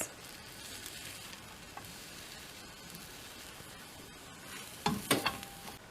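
Egg omelette sizzling in a hot frying pan with a steady high hiss, then a few sharp scrapes and clinks near the end as it is moved out of the pan.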